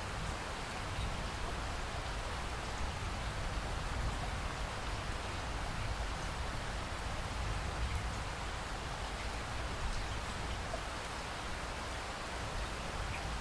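Steady rain falling: an even hiss with a constant low rumble underneath and a few faint drop ticks.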